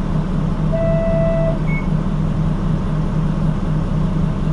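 Cabin of a Nishitetsu city bus: the engine runs with a steady drone and a low, evenly pulsing hum. About a second in, a single electronic beep sounds for under a second, followed by a short higher chirp.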